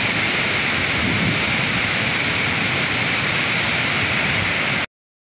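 Flooded mountain river rushing in a steady, even torrent, a stream in spate. The sound cuts off suddenly near the end.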